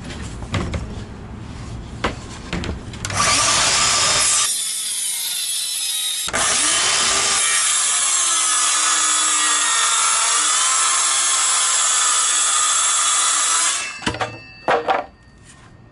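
A few handling knocks, then a power saw runs and cuts through birch plywood for about eleven seconds, from about three seconds in until it stops abruptly near the end, followed by a few knocks.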